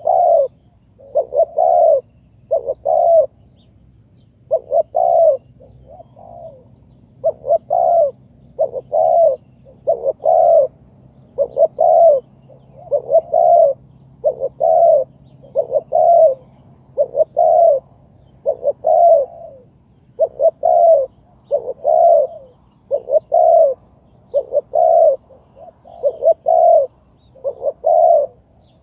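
Spotted dove cooing over and over: short phrases of two or three low notes, repeated about every second and a half.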